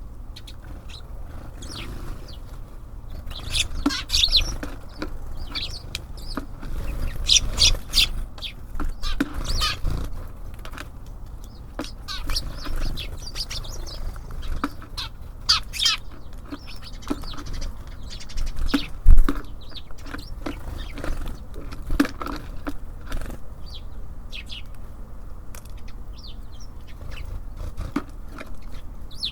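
Small birds at a feeder: scattered short chirps, wing flutters and sharp clicks, with one louder thump about nineteen seconds in.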